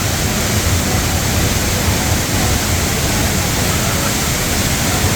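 A large, powerful waterfall pounding into its pool: a loud, steady rush of falling water.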